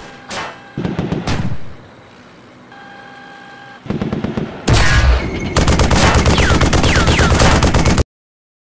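Gunfire sound effects: a couple of sharp shots, a quieter lull, then a loud blast and sustained rapid machine-gun fire with a few falling whistles, cutting off suddenly near the end.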